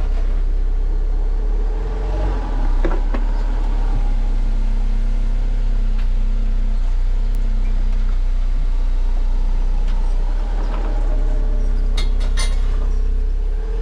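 Off-road 4x4 vehicle engine running steadily at low speed, a constant low rumble, with a few sharp clicks near the end.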